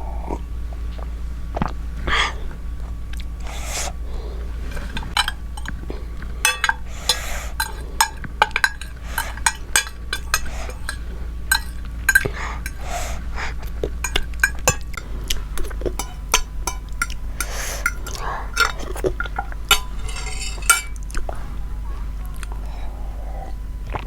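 Cutlery clinking and scraping against dishes as a meal is eaten, in a series of short, irregular clicks, close to the microphone.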